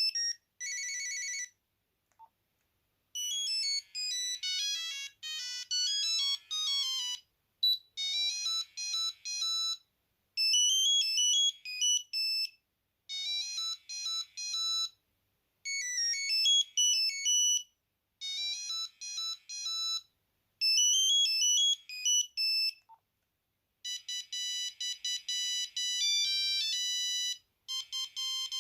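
Nokia 8210 playing monophonic ringtone melodies through its small speaker: short, high beeping tunes of a few seconds each with brief pauses between. Near the end a faster, more even beeping tune takes over.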